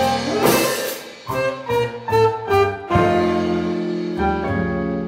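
Live swing band (saxophone, hollow-body electric guitar, upright bass, piano and drums) playing the closing phrases of a jump-blues tune: short punched ensemble hits and a held chord about three seconds in.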